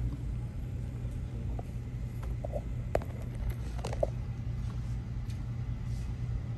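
Steady low rumble of restaurant room noise, with two short sharp clicks about three and four seconds in.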